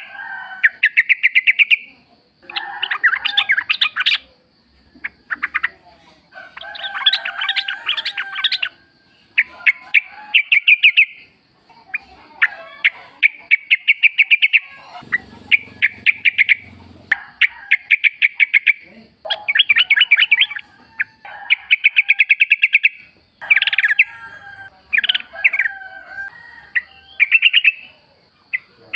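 Yellow-vented bulbuls singing: bubbly, chattering phrases of rapid notes, each a second or two long with short gaps between, one after another, over a faint steady high tone.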